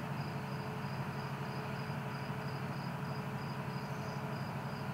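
A cricket chirping steadily, a high note pulsing about five times a second, over a low steady hum.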